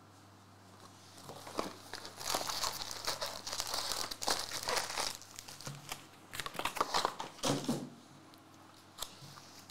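Foil wrappers of Topps Formula 1 trading card packs crinkling as a handful is lifted out of the box and stacked. It starts about a second and a half in, runs densest for about three seconds, then comes in shorter rustles.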